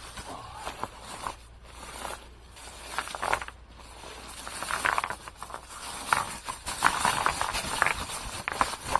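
Stones and gravel crunching and knocking in an irregular run of short crunches and clicks, busier and louder in the second half.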